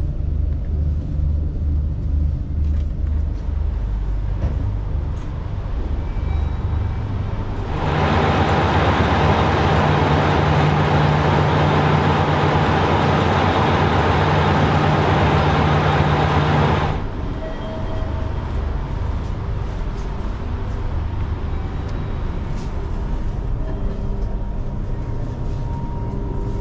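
Yufuin no Mori diesel railcar idling, a low steady engine hum. About eight seconds in it gives way to a much louder steady rush over a hum, the car heard up close from outside, which cuts off abruptly about nine seconds later, leaving the low hum again.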